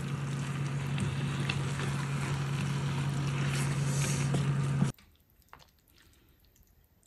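Chicken and vegetables sizzling in a frying pan as they are stirred with a wooden spatula, over a steady low hum. The sound cuts off about five seconds in, leaving quiet with a few faint taps.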